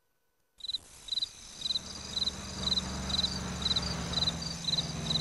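Crickets chirping in a steady rhythm, about two chirps a second, over a low steady hum. They start after a brief silence about half a second in.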